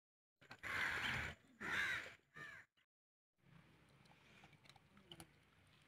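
A crow cawing: two harsh calls in the first two seconds and a shorter third just after, then only faint background noise.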